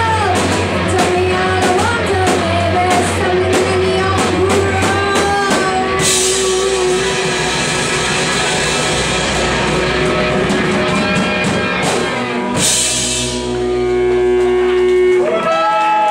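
Live rock band playing: a singer over electric guitars and a drum kit for the first few seconds, then a long crashing cymbal wash under held, ringing chords as the song draws to its close.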